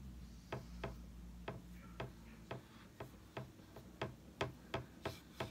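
A run of light, uneven clicks or taps, about two to three a second, a little stronger toward the end.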